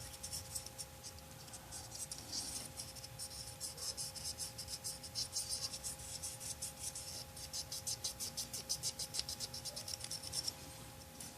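Paintbrush scrubbing and dabbing oil paint onto a plastic scale model, a quick run of small dry scratching strokes that eases off near the end.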